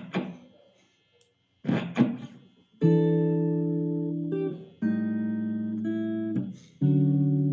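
Guitar playing chord melody: a few short, muted percussive hits on the strings, then three full chords, each left to ring and fade for about two seconds.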